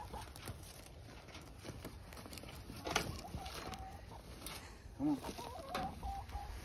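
Hens clucking, with drawn-out wavering calls about three seconds in and again in the last couple of seconds. A sharp knock comes at about three seconds.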